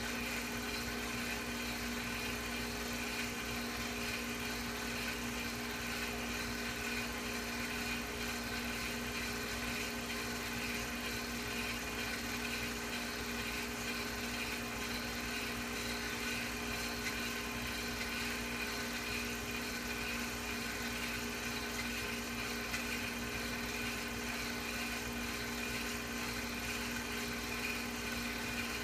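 Film projector running with a steady motor whir and a few fixed tones that do not change.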